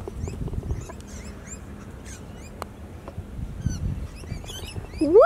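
Small birds chirping over and over in quick, short rising and falling notes, over a steady low rumble of wind on the microphone.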